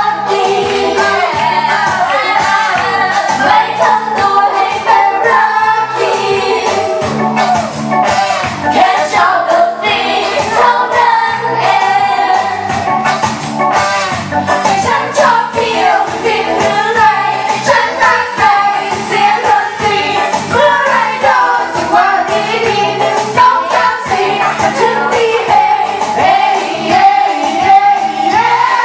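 Loud pop music with voices singing over a steady beat.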